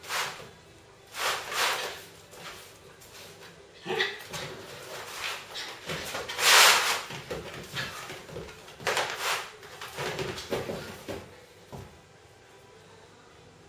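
Two Shetland sheepdogs play-fighting: a string of short, sharp dog noises and scuffles of paws on a leather sofa, the loudest about six and a half seconds in, dying down near the end.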